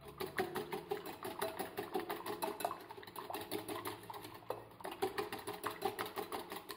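Metal wire whisk beating egg in a glass bowl: rapid, even clicking as the wires strike the glass, several strokes a second, stopping abruptly at the end.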